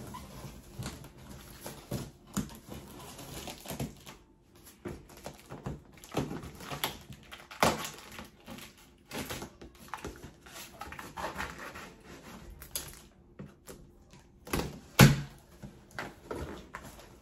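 Cardboard box and packaging being opened and handled: irregular rustling, scraping and clicks, with two louder knocks, one about eight seconds in and one near the end.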